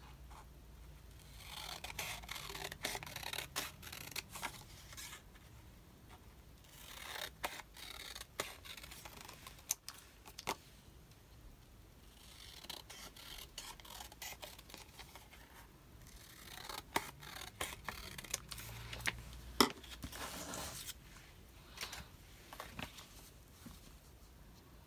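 Scissors cutting paper in several bouts of snipping a few seconds long, with sharp clicks of the blades and paper handling in between.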